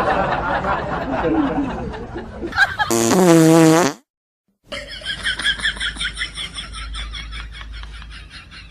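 A prank fart noise: one loud, pitched, wavering buzz lasting about a second, about three seconds in, that cuts off suddenly.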